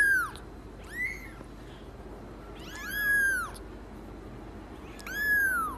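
Very young kitten mewing: four high-pitched meows about two seconds apart, each rising and then falling in pitch.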